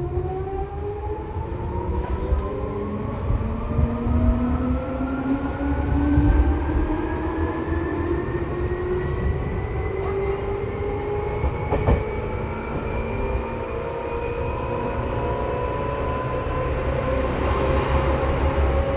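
Seibu 2000 series electric train accelerating, heard from inside the car. The traction motor and gear whine climbs steadily in pitch, rising more slowly toward the end, over a low rumble of wheels on the rails.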